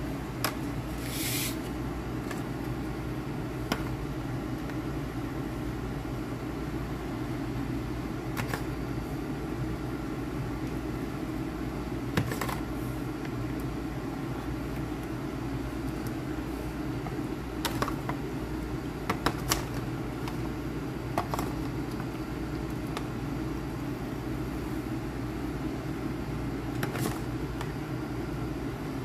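A steady low mechanical hum, with scattered light clicks and taps of a plastic serving utensil against foil pans and a paper plate as pasta and meatballs are served.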